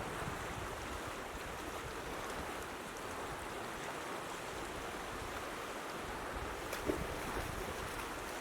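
Steady rush of a flooded creek's fast-flowing water, with a small knock about seven seconds in.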